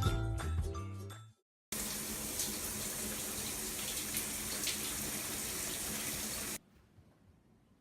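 Steady rush of running water, like a shower spray, starting abruptly a couple of seconds in and stopping suddenly near the end. Before it, the last notes of light music.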